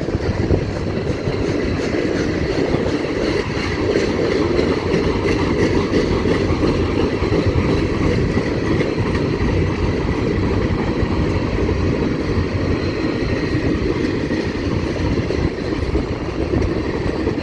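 CN freight train cars rolling past, a steady rumble of wheels on the rails.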